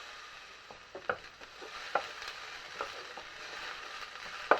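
Diced onion and crushed garlic sizzling in olive oil in a large pan, with a steady hiss. A few light scrapes of a utensil stirring them come about once a second, and a sharper knock comes near the end.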